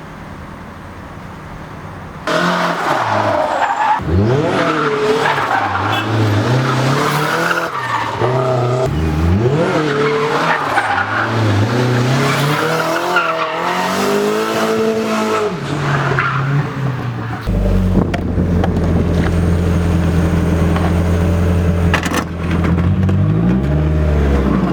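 Turbocharged Mazda Miata engine revving up and down again and again, with tyres squealing, as in drifting, starting about two seconds in. From about two-thirds of the way through, the engine holds a steady drone that drops in pitch near the end.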